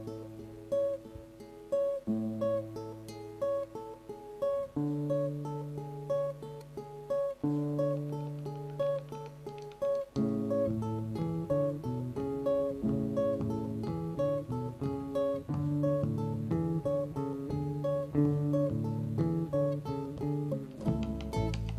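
Nylon-string acoustic guitar fingerpicking an instrumental intro: a repeating pattern of plucked notes over held low notes, growing fuller about ten seconds in.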